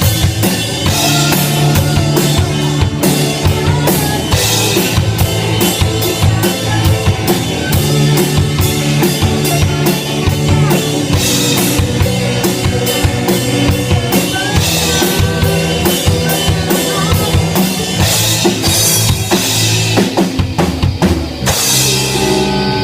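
Band music with a full drum kit, kick and snare keeping a steady beat under bass and other instruments.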